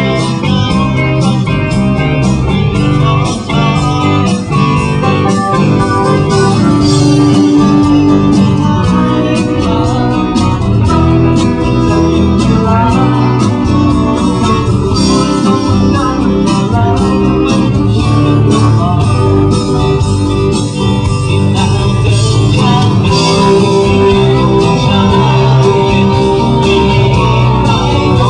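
Live band playing a song, amplified and loud, with a singer's voice over it and a steady beat coming in about six seconds in.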